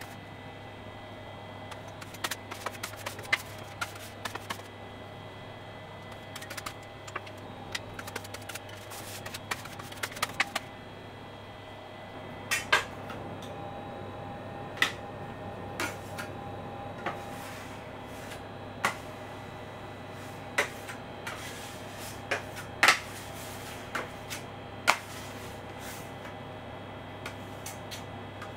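Steel scraper and palette knife scraping and tapping on a marble slab as melted chocolate is spread and worked back together (tabling, to temper it), with scattered sharp clicks of the blades on the stone and against each other; the clicks are fewer but louder in the second half.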